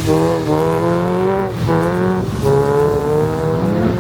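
Car engine revving high and held, its pitch wavering up and down with a few short dips as the throttle is worked, while the car slides with its wheels spinning in snow.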